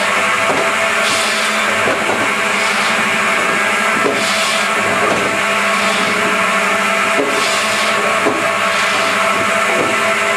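DS-33 double-blade firewood processor running, with a steady machine hum from its two 700 mm circular saw blades and drive. A surge of sharper noise comes several times as the blades cut through the fed wood poles.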